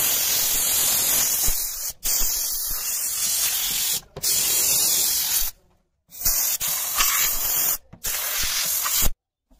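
Vapodil dry-steam cleaner's hand gun blowing pressurised steam in a loud hiss, released in about five bursts of a second or two, each cut off briefly between triggers, then stopping near the end.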